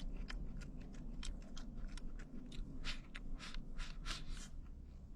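A person chewing crunchy dry-fried cauliflower: a quick, irregular series of short crisp crunches.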